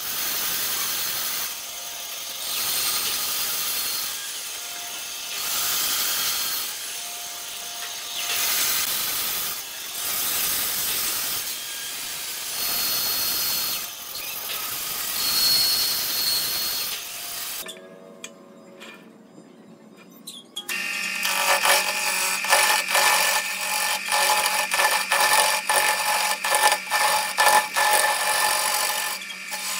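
Band saw cutting a curved wooden piece, the sound swelling and easing about every two seconds as the wood is fed through the blade. After a short quieter gap about two-thirds of the way through, a wood lathe runs with a steady hum while a hand-held turning tool scrapes and chatters against the spinning wooden blank.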